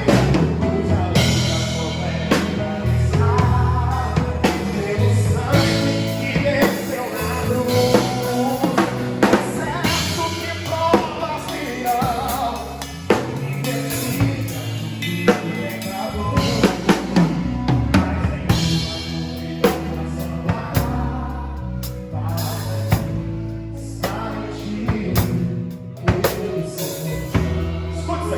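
Live gospel worship band playing, with a full drum kit (kick, snare and rimshots) driving the beat under the instruments and some singing.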